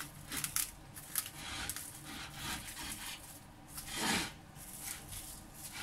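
Plastic cling wrap crinkling and rustling in short bursts as it is stretched and pressed around the rim of a ceramic bowl, with one louder rub about four seconds in.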